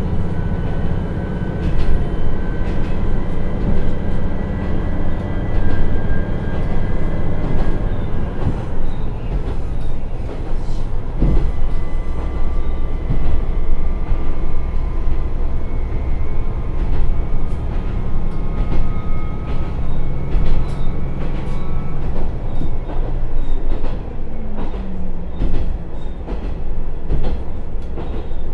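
Cabin running sound of an Akechi 100-series diesel railcar, its Niigata DMF13HZ diesel engine pulling under power as the car gathers speed up a gentle grade, with wheel and rail noise and clicks over the track. The engine note drops in pitch about four seconds before the end.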